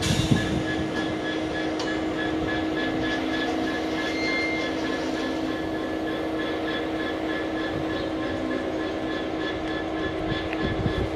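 GBRf Class 66 diesel locomotive standing at idle, its EMD two-stroke V12 engine running with a steady drone and a constant hum, with a light regular pulsing in the higher tones. A brief low thud comes at the start and another near the end.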